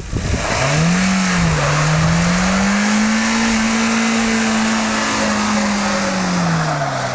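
Honda HR-V's engine revving up under load: its pitch climbs, dips once about a second and a half in, then rises again and holds high for a few seconds before dropping back near the end. A steady rushing noise runs beneath it.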